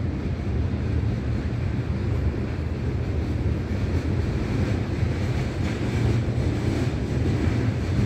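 Freight train of tank cars rolling past on the tracks above, a steady low rumble.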